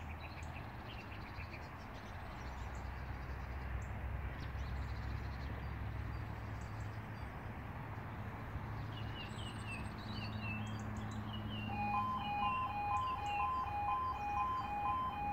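Birds chirping over a low background rumble. About twelve seconds in, the level crossing's E2S alarms start: a two-tone warning alternating between two pitches about twice a second, signalling that the lights have changed and the half barriers are about to lower for an approaching train.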